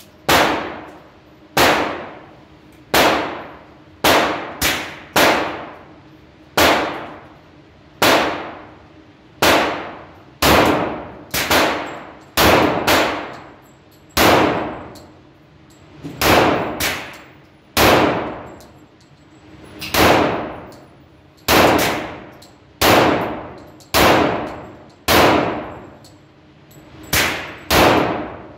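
Gunshots on an indoor firing range: about two dozen single shots spaced irregularly, roughly a second apart, some in quick pairs. Each shot is sharp and leaves a long ringing echo off the range walls.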